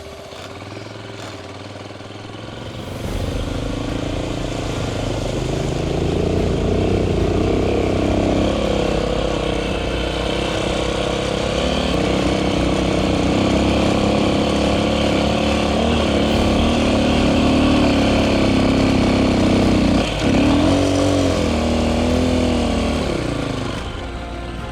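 AKT TT DS 200 motorcycle's single-cylinder engine running under load as the loaded bike is ridden through shallow floodwater, its pitch rising and falling with the throttle. It gets louder about three seconds in and briefly drops out near the end before picking up again.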